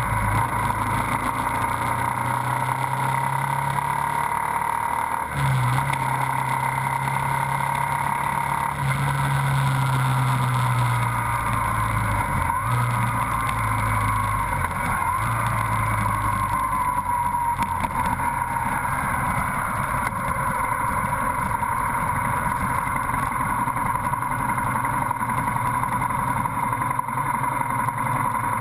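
Motorcycle engine running as it rides through city traffic. The engine note steps up and down in pitch several times in the first half, then steadies.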